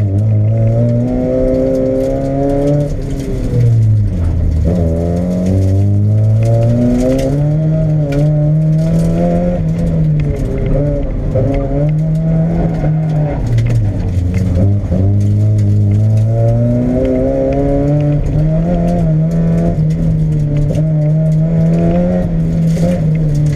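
Mazda Miata's four-cylinder engine heard from inside the cabin, driven hard on an autocross run: its pitch climbs under acceleration and drops back when the driver lifts or shifts, over and over.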